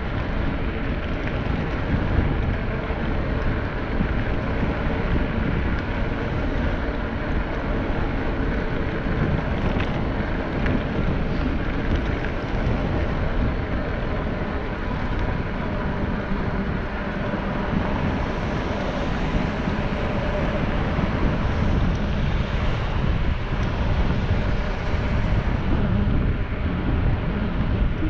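Steady wind noise buffeting the microphone of a camera moving along a paved path, with tyre noise rolling on the asphalt beneath it.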